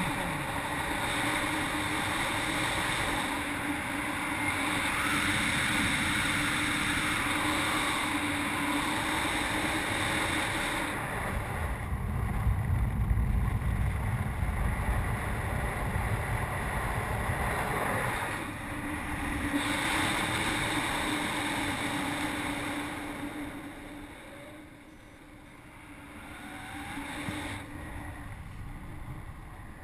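Airflow rushing over a GoPro action camera in paraglider flight: steady wind noise on the microphone, with heavier low buffeting for several seconds near the middle and easing off later.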